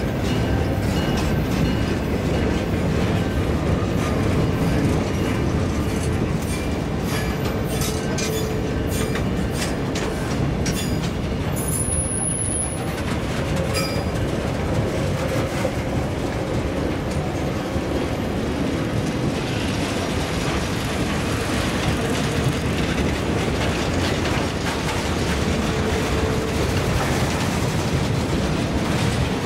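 Freight cars rolling past on jointed track, wheels clicking over the rail joints, with a brief high wheel squeal about twelve seconds in.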